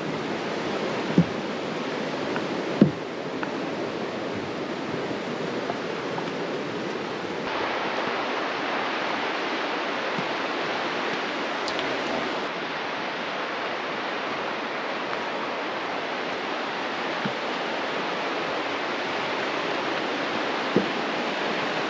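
Steady rush of a fast-flowing creek, Riley Creek, with a few light knocks near the start and again near the end.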